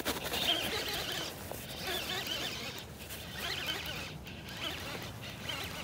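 Baitcasting reel being cranked in short bursts, reeling in a small hooked bass.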